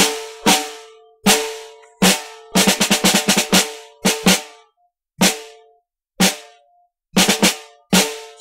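A drum struck by itself in an uneven pattern: single hits, with a fast flurry of strokes about three seconds in and a quick triple near the end. Each hit rings with a clear pitch.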